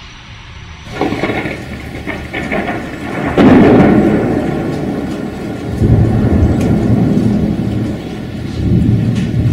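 Thunder rolling over steady rain. The loudest clap comes about three and a half seconds in, and the low rumble swells again twice after it.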